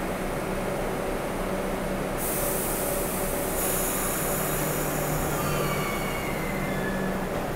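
New York subway train of the R142 family at the platform, running with a steady hum. About two seconds in comes a short burst of air hiss, and after that thin high squealing tones slide down in pitch.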